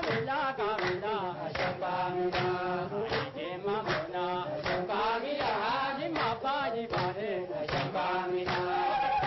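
A group of women singing a chant-like song together, with rhythmic hand claps at about two to three a second. Near the end a long steady note comes in.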